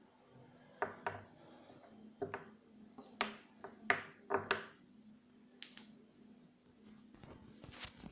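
A series of sharp clicks and light taps, about ten of them, some in quick pairs, as small hard objects are handled, over a faint steady hum.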